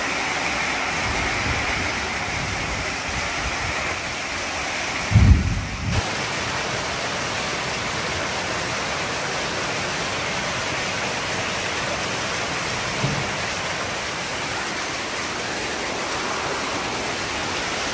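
Heavy tropical-storm rain pouring steadily onto floodwater over a concrete yard, with a low thump about five seconds in.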